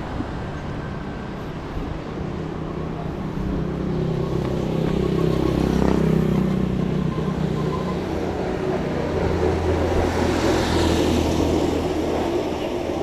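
Road traffic: motor vehicles passing close by, one engine swelling to its loudest about six seconds in and another going by about ten seconds in.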